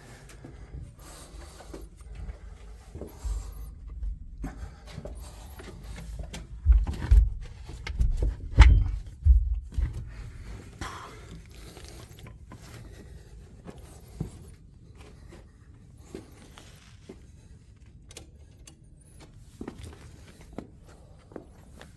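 Scrapes, small knocks and shuffling movement with camera-handling noise, as someone moves about in a cramped space. A cluster of heavy low thumps comes about seven to ten seconds in.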